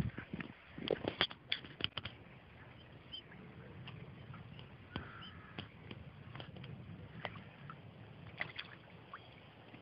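Eurasian crane bathing in a shallow pool, splashing and sloshing the water: a quick flurry of splashes in the first two seconds, then scattered single splashes.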